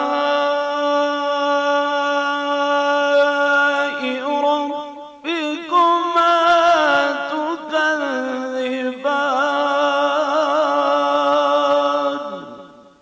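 A man reciting the Quran solo in melodic tajweed style, drawing out long held notes with a wavering, ornamented pitch. The voice dips briefly about four to five seconds in and dies away near the end.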